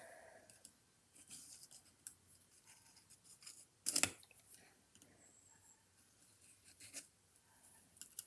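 Faint small metal scraping and clicking as a threaded retaining ring is screwed down over the ball-bearing race of a Brunswick tonearm base, with one sharper click about four seconds in.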